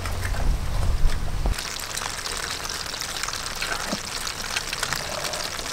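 A heap of live crayfish crawling over one another, their shells clicking and scraping in a dense, steady crackle. A low rumble under the first second and a half stops abruptly.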